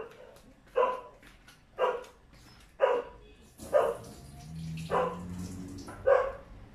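A dog barking single, sharp barks at a steady pace, about one a second.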